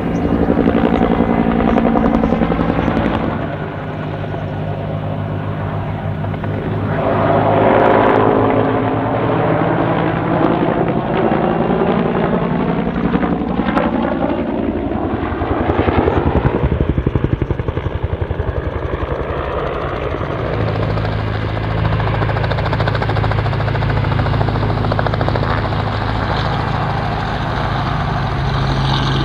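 Bell TAH-1F Cobra helicopter flying a display, its two-bladed main rotor beating steadily. The sound swells and fades and its pitch sweeps up and down as the helicopter passes and turns.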